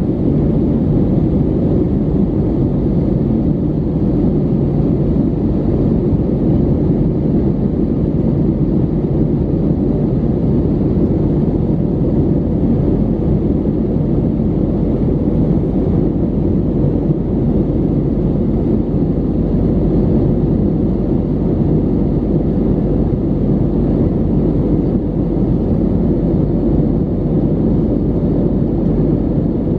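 Steady low cabin drone of an Airbus A320neo in flight, engine and airflow noise heard from inside the cabin at a window seat.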